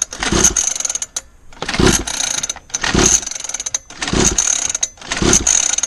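49cc two-stroke mini dirt bike engine being pull-started about five times, roughly once a second, each pull a short rasping whirr of the recoil starter and cranking engine. It cranks but does not catch and run.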